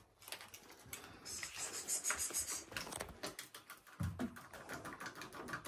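Faint quick clicking and scraping of cat food bowls being set down and handled on a mat on a wooden floor, busiest for a second or two, with a soft knock later on.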